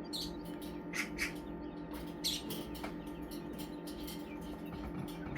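Baby birds peeping: a few short, high chirps at irregular moments, over a steady low hum.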